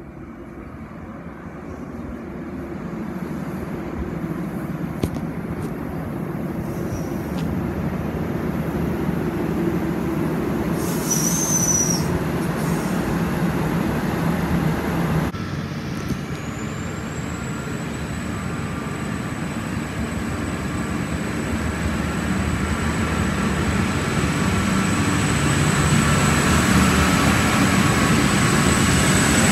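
Diesel multiple-unit passenger railcar set running into the station and slowing, its engines and wheels growing louder, with a brief high brake squeal about eleven seconds in. After a sudden break the railcars pull away under power, a high whine rising and then holding steady over the engine rumble as it builds.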